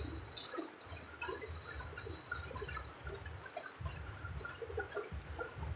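Steady rain falling, with many scattered drips and splashes and a low, uneven rumble underneath.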